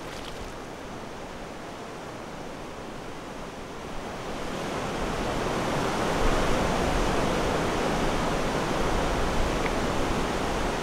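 Steady rushing of river water, growing louder about halfway through.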